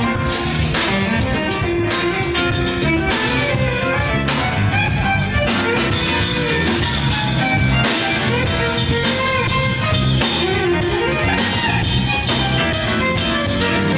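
Live band playing with electric guitar, bowed violin, congas, drum kit and bass guitar, over a steady beat.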